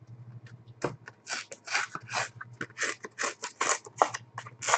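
A Panini Zenith Dare to Tear hockey card being roughly torn open: a quick run of short rasping tears and scrapes of thick card, about three a second.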